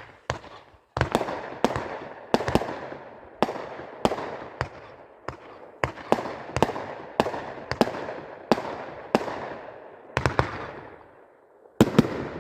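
A consumer fireworks cake (Football Maniac) firing a rapid string of shots, about two a second, each bang followed by a fading crackle or echo, with a brief lull before a last pair of shots near the end.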